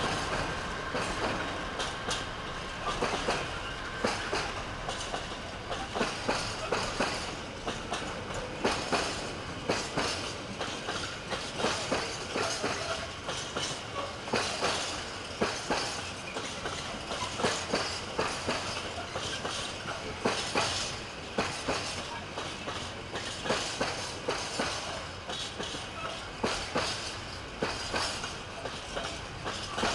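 Container flat wagons of a freight train rolling past, their wheels clacking over the track in an uneven run of sharp clicks over a steady rumble.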